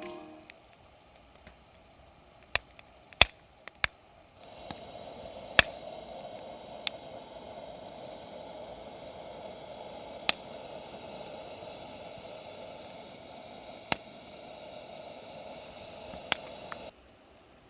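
Wood campfire crackling: scattered sharp pops and snaps, joined after about four seconds by a steady hiss of burning that stops abruptly near the end.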